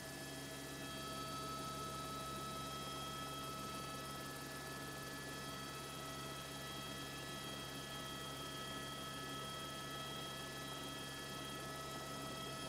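Helicopter in flight, heard through the crew's intercom microphone: a steady hum with several higher steady tones, unchanging throughout.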